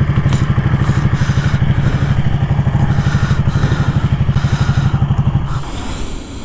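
Ducati Panigale 899's Superquadro V-twin idling with a steady pulsing beat, then shut off about five and a half seconds in.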